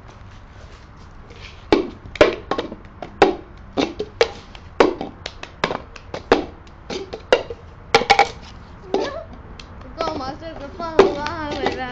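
Hands clapping and slapping in a quick, uneven rhythm of about two strokes a second, then voices come in about ten seconds in.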